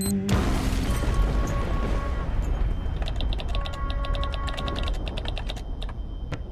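Sound-effect noise: a dense crackling with a low rumble cuts in just after the start and fades slowly. From about three seconds in, a fast, even run of electronic clicks with faint tones comes in and stops near the end.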